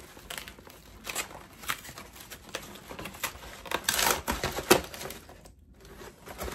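Cardboard box being opened by hand: flaps pulled apart and rubbed, with scattered taps and clicks and a louder tearing, scraping stretch about four seconds in.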